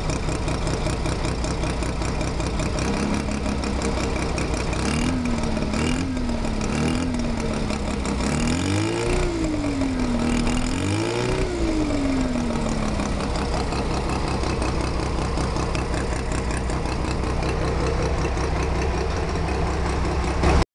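Bridgeported Mazda 13B rotary engine in an RX-7 FC idling with a clicking sound from the engine. It is given three short throttle blips about five seconds in and two longer revs a few seconds later, then settles back to idle.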